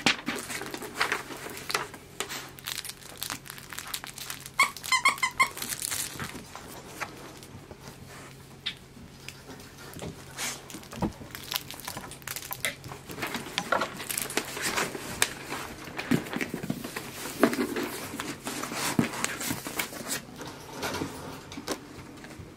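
Paper and cardboard packaging rustling and crinkling in irregular handling noises as items are lifted out of a box filled with paper shred. About five seconds in there is a short pitched squeak in three quick pulses.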